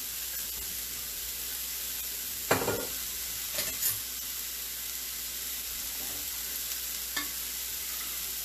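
Hash browns sizzling steadily in a frying pan, with a few short knocks and clatters of things being handled, the loudest about two and a half seconds in.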